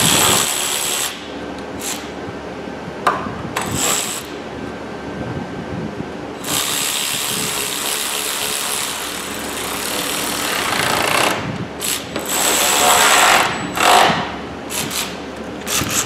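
Cordless electric ratchet with a 10 mm socket whirring in several bursts as it drives bolts home, the longest run about four seconds.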